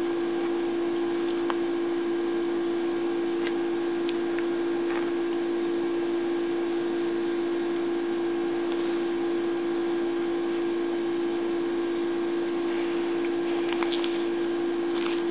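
A steady hum at one fixed pitch, with a few faint ticks of small handling noises.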